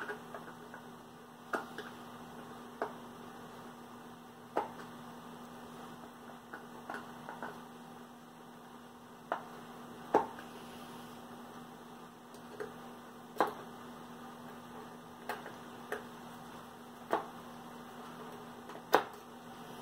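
About a dozen scattered sharp clicks and taps of a hand screwdriver, screws and a metal cabinet handle against a wooden cabinet door as the handle's screws are driven in by hand, over a steady low hum.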